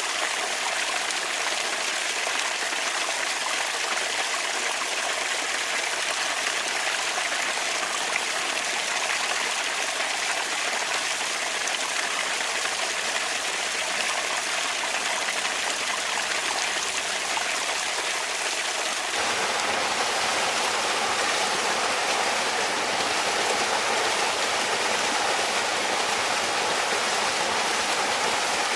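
Bamboo water fountain: water running and trickling steadily. About two-thirds of the way through the sound changes suddenly to a fuller, slightly louder flow with more depth.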